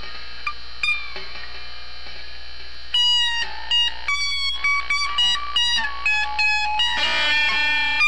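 Fender Stratocaster electric guitar played alone without backing: a couple of single notes, then from about three seconds in a quick run of picked notes, ending on several notes ringing together. A steady low hum runs underneath.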